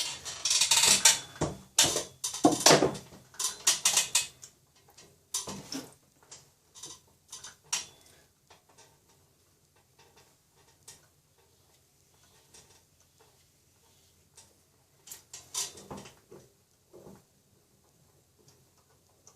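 Potter's hand tools clicking and scraping against clay and the work surface as a hole is cut out of a thrown clay bird feeder. A busy run of sharp clicks and scrapes for the first several seconds, then a few scattered taps, with another short cluster about fifteen seconds in, over a faint low steady hum.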